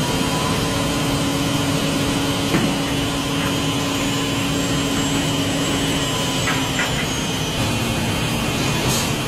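Steady drone of plastic pallet moulding machinery, an even noisy hum with a few steady tones running through it, with a few light clicks and knocks.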